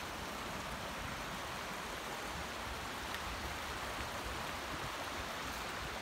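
Shallow creek running over rocks: a steady rush and babble of water.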